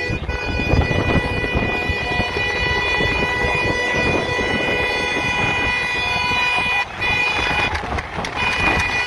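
A vehicle horn held down in one long steady blast, breaking off briefly about seven seconds in and again near eight seconds. Under it is heavy wind and road rumble from a moving car with its window open.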